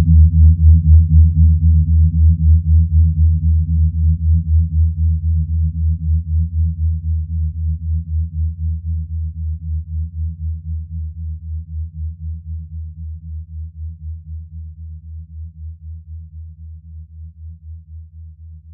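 Electronic music outro: a low synthesizer bass drone pulsing about three times a second and fading out slowly. A few light percussive clicks stop about a second in.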